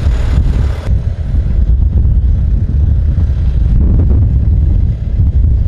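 Deep, steady rumble of an F-35's jet engine. The higher hiss above it drops away abruptly about a second in.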